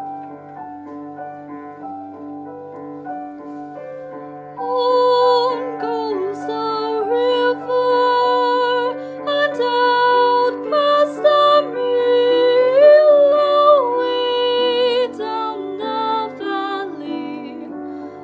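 Piano accompaniment plays alone for about four seconds, then a woman's solo singing voice comes in over it, singing long held notes that slide between pitches.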